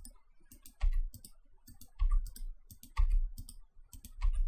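Computer mouse and keyboard clicks: a string of sharp clicks with a louder dull knock about once a second.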